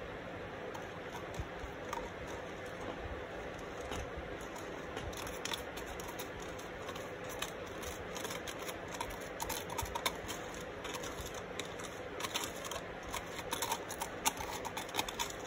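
A wooden spoon scraping and clicking against the inside of a plastic cup as a thick mix of sand and resin is scraped out. The small irregular ticks grow busier after about five seconds, over a steady background hiss.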